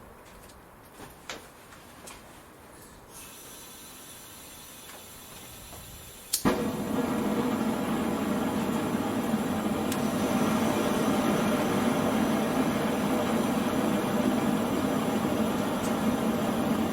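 Foundry furnace gas burner starting up: a faint hiss, then a sharp click about six seconds in and the burner running loudly and steadily.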